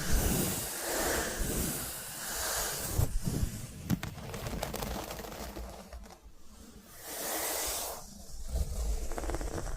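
Blind-bag packaging being handled: soft swishing rustles swelling about once a second, then sharp crinkles and crackles from about three seconds in, with another swish and more crackling near the end.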